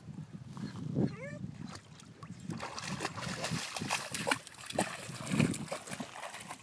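A dog wading and splashing through shallow water, the splashing turning dense and irregular from about halfway through. A brief high whine about a second in.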